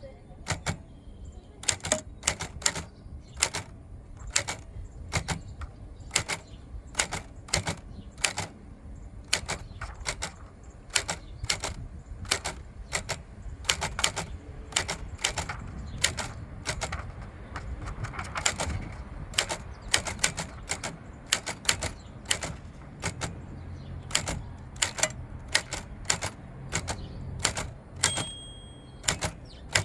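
1954 Smith Corona Skyriter manual portable typewriter being test-typed: sharp, irregular key strikes, several a second, with a bell ring near the end.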